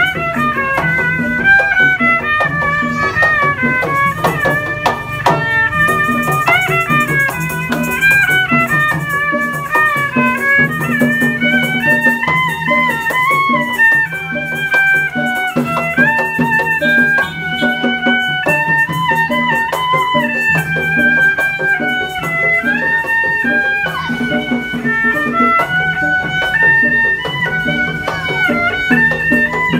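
Betawi street music accompanying an ondel-ondel procession: a high melody that slides between notes over a steady, repeating low beat.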